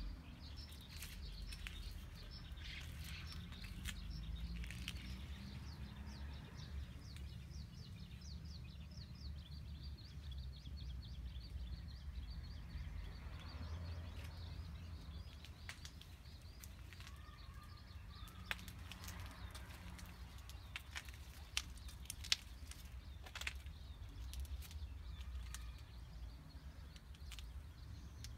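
Outdoor garden ambience: a steady low rumble with small birds chirping, including a fast run of high chirps through the first dozen seconds. Scattered sharp clicks come in the second half.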